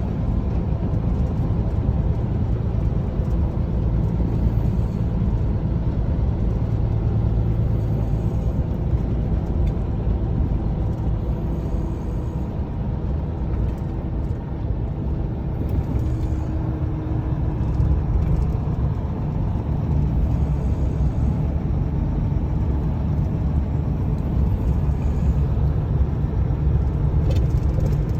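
A steady low rumble of a running motor vehicle, unchanging throughout.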